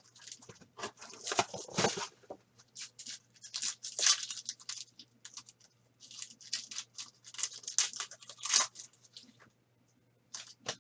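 Foil trading card pack wrappers being torn open and crinkled in the hands: irregular bursts of tearing and rustling, which stop shortly before the end.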